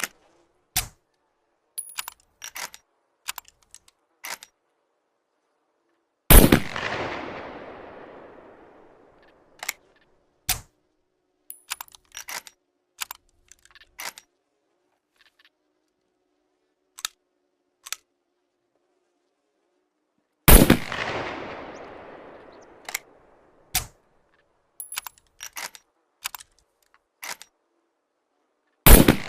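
Improvised rifle firing three single shots, far apart, each a loud crack followed by a long fading echo. Between the shots come many short clicks and rattles, like the rifle being handled and reloaded.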